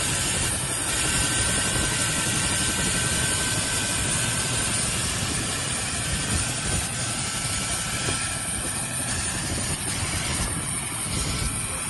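Mil Mi-8-family twin-turbine helicopter running on the ground with its rotor turning: a steady, loud rumble of rotor and engine with a thin high whine over it.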